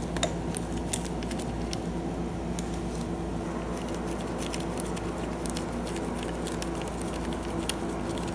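Scattered light clicks and taps of a hand tool loosening the negative terminal bolt on a motorcycle battery, over a steady low hum.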